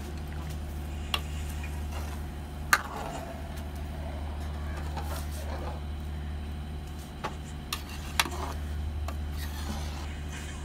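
A steel ladle stirring bean gravy in a steel pot, clinking sharply against the pot about five times, the loudest about three seconds in, over a steady low hum.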